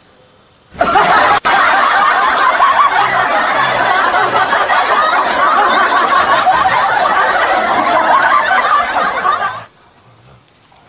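Group of people laughing and snickering together, a dense continuous laugh that cuts in abruptly just under a second in and stops sharply near the end.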